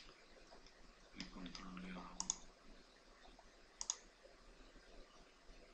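Two sharp computer mouse clicks about one and a half seconds apart, each a quick double snap of press and release. Just before the first, a short, low hummed voice sound.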